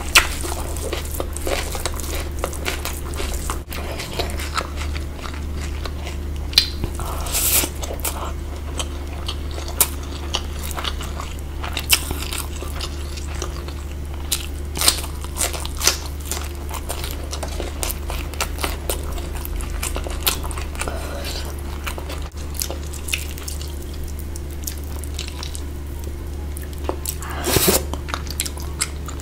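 Close-miked eating: large bites and crunchy chewing, with irregular sharp crunches throughout over a steady low hum, and a louder cluster of crunches near the end.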